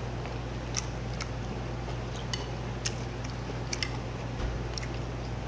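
Light, scattered clicks of metal chopsticks against a small bowl during eating, about a dozen over a few seconds, over a steady low hum.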